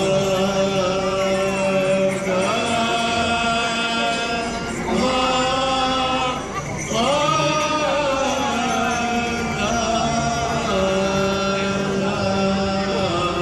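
Devotional chanting sung in long held notes, in phrases of two to three seconds that each begin with an upward swoop in pitch.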